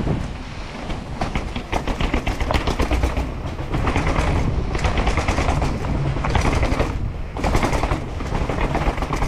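Downhill mountain bike clattering rapidly over rough urban ground, the frame and chain rattling in quick runs of knocks. Wind rumbles on the microphone underneath.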